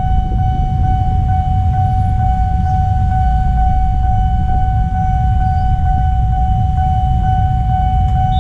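Railway level-crossing warning alarm sounding a steady high tone with a slight regular pulse, the signal that the barrier is closed and a train is coming, over a constant low rumble.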